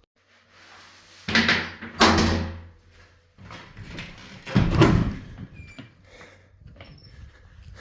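A runner's heavy breathing: three loud, rough breaths, about a second in, two seconds in and near the five-second mark, with sharp knocks among them and softer noise in between.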